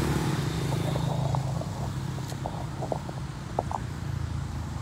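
A motorbike engine passing close by on the road, its hum loudest at first and then fading into steady traffic noise. A few short high chirps sound partway through.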